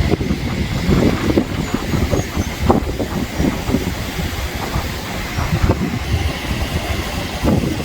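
Wind buffeting the microphone: a loud, uneven low rumble that swells and dips irregularly.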